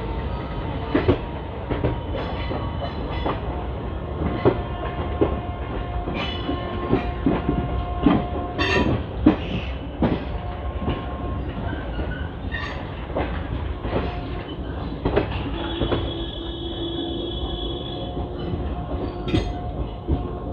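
Indian Railways passenger coach running over the rails, heard from the train itself: a steady low rumble with irregular clacks as the wheels cross rail joints and points. Thin squealing tones from the wheels come and go, strongest a little past the middle.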